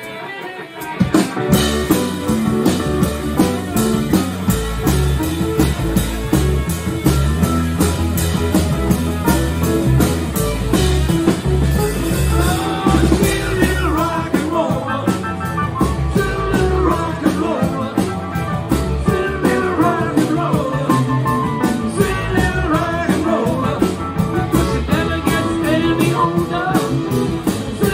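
Live rock band, with electric guitar, bass guitar and drum kit, coming in together about a second in with a steady beat. Singing joins from about halfway.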